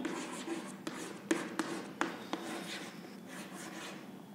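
Chalk writing on a blackboard: scratchy strokes with several sharp taps as the chalk strikes the board, quieter in the last part.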